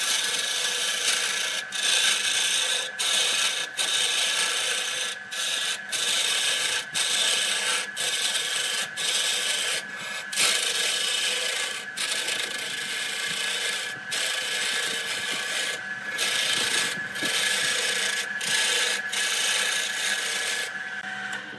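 A handful of wood shavings is pressed against a spinning areca-wood vase on a wood lathe, giving a loud rubbing hiss that breaks off for a moment many times, roughly once a second, as the pad is lifted and pressed on again. Under it the lathe motor keeps up a steady whine. This is burnishing the freshly turned wood.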